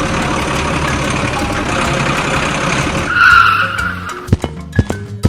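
Small vehicle running over rough ground with a dense grinding rumble for about three seconds, then a brief, louder skidding screech. Near the end, light background music with plucked notes and sharp clicks comes in.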